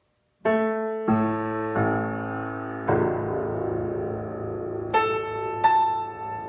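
A c.1982 Steinway Model L grand piano played slowly: starting about half a second in, six chords and notes are struck one after another, each left to ring on into the next.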